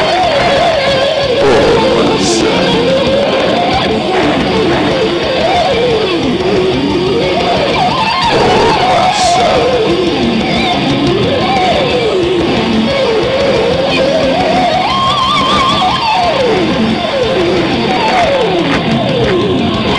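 Rock music led by electric guitar playing winding melodic lines that climb and fall, over a steady full band.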